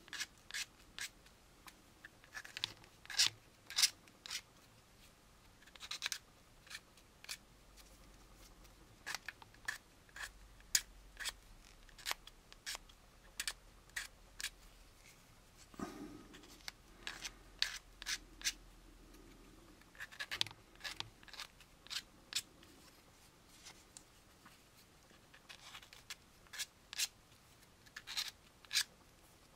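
Hobby knife blade scraping the edge of a small styrene plastic model-kit part in short strokes that come in quick, irregular runs, shaving off mold ridges and flash to smooth the edge.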